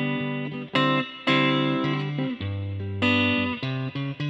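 Guitar playing the instrumental intro to a worship song: chords are struck and left ringing, with a new chord about every second and short gaps where the strings are stopped.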